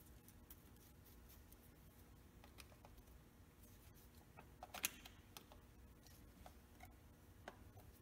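Mostly near silence, with faint scattered clicks of a screwdriver working a screw on an SU carburetor's linkage. One sharper metal click comes a little past the middle.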